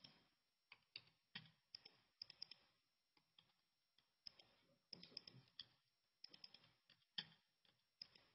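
Faint, irregular clicking of laptop keys and touchpad buttons, some in quick little runs, as numbers are typed into settings.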